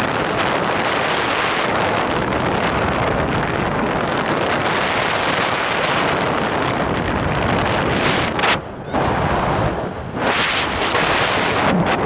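Strong wind buffeting a phone's microphone: a loud, rough rushing that drops briefly twice, about two-thirds of the way through and again a second or so later.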